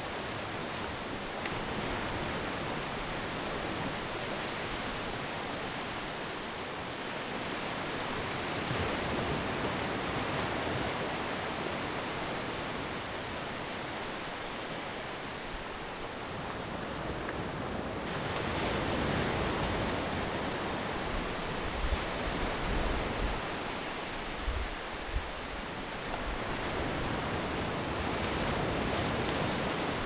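Small waves breaking and washing over a flat sandy beach: a steady hiss of surf that swells every several seconds as a set comes in. A few brief low bumps in the second half.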